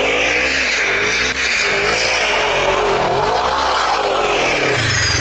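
2017 Polaris RZR XP 4 1000's parallel-twin engine under way, its pitch rising and falling several times as the throttle is worked, over a steady rushing noise.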